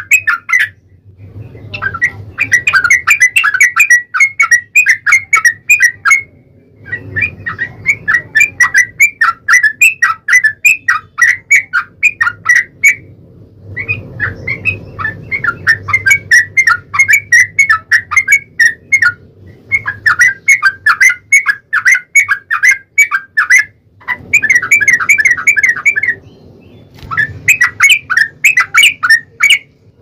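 Yellow-vented bulbuls (trucukan) giving long, rapid, chattering song phrases in bouts of a few seconds each, broken by short pauses: the long 'ropel' song that bird keepers play to provoke other bulbuls into answering.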